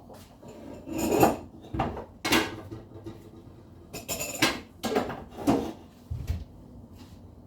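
Kitchen pots, pans and utensils clattering and knocking in several separate bursts, with a dull thud near the end.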